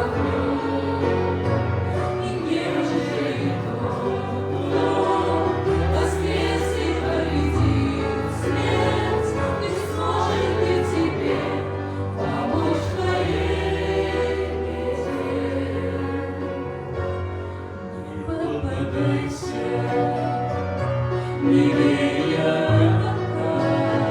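A choir singing a Christian hymn, held notes over a sustained accompaniment.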